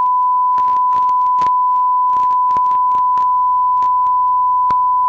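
Steady 1 kHz reference tone on a VHS tape over a blank grey screen, held at one pitch, with scattered clicks of tape crackle and a faint low hum under it.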